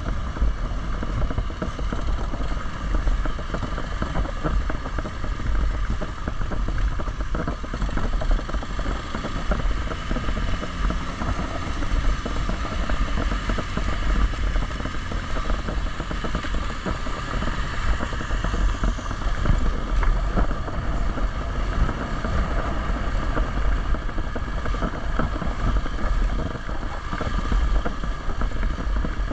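Hero XPulse 200's single-cylinder engine running continuously while the motorcycle is ridden, with wind buffeting the action camera's microphone. The loudness wavers but never drops out.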